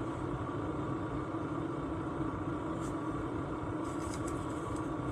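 Steady mechanical hum of a diesel heater running, with a constant low tone and a few faint light clicks in the second half.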